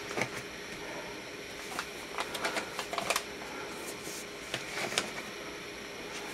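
A cardboard box-set lid and paper record sleeves being handled: rustling and sliding with scattered light taps and clicks, coming in short clusters.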